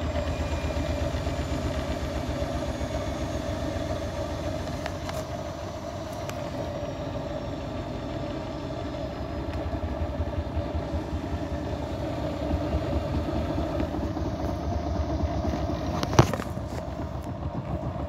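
Grundig front-loading washing machine in a short interim spin, the drum turning with an unbalanced load of towels: a steady motor hum over a rapid low pulsing, and one sharp knock about two seconds before the end. The machine is wobbling hard from the imbalance.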